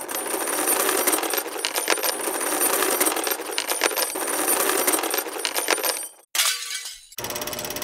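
Metal chains rattling and clinking in a dense, continuous jangle that breaks off about six seconds in. Just after seven seconds a steady, fast-pulsing mechanical hum starts.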